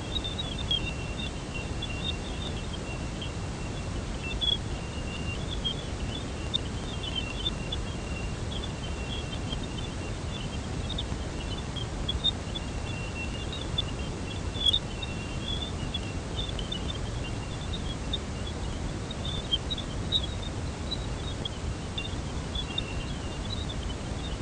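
Space radio emissions of Jupiter or one of its Galilean moons turned into sound: a steady hiss and low rumble with a thin high tone that comes and goes and many scattered high chirps and blips.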